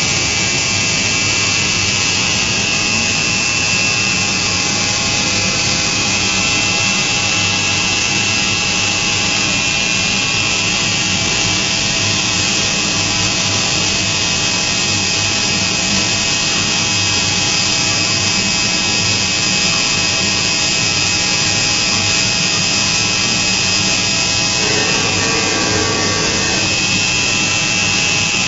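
DMU 5-axis CNC machining centre milling a metal workpiece. The spindle and cutter give a steady high-pitched whine over a constant cutting hiss.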